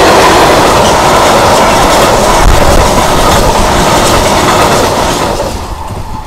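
Empty stanchion flat wagons at the tail of a freight train rolling past, wheels clattering on the rails. The noise dies away near the end as the last wagon clears.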